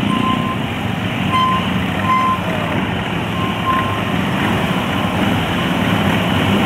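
Several police motorcycles running at low speed in a close-formation slow-riding drill, their engines a steady low rumble. A few short, high beeps sound over them in the first four seconds.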